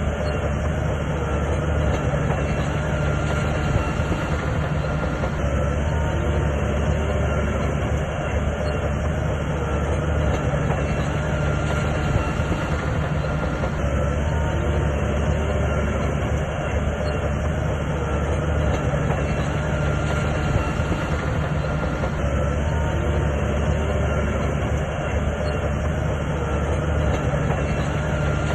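SHANTUI bulldozer working: its diesel engine runs steadily under a continuous clatter of steel tracks.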